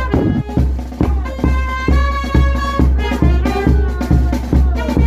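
Peruvian brass band playing a cumbia: the brass holds long chords over a steady bass drum beat of about two strokes a second.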